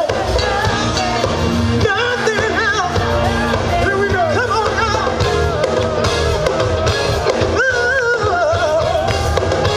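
Loud music playing, a singer's voice over a heavy, steady beat.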